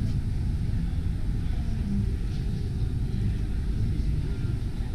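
Steady low rumble of a crowded exhibition hall's background noise, with faint distant voices.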